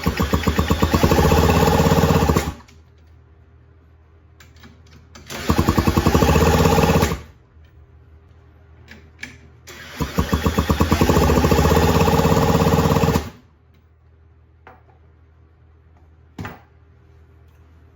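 Honda Gyro X scooter's small engine cranked over three times on its electric starter, each try a couple of seconds of rapid, even pulsing that stops abruptly without the engine catching. A single sharp click near the end.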